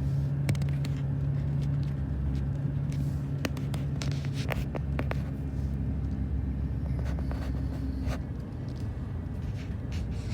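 Car driving on a road, heard from inside the cabin: a steady low engine hum and road noise with a few sharp knocks and rattles. About eight seconds in the engine note drops and gets quieter, as when easing off the throttle.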